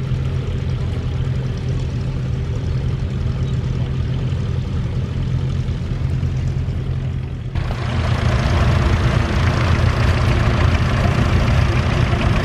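Vintage tractor engine running steadily with a low, even beat. About halfway through the sound changes suddenly and a strong hiss joins the engine.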